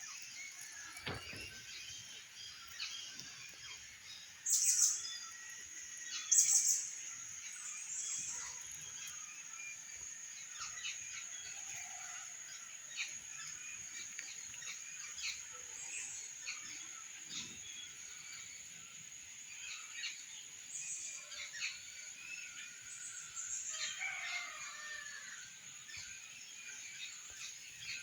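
Birds chirping outdoors, with short loud calls about five and six and a half seconds in and fainter calls scattered throughout, over a steady high-pitched drone.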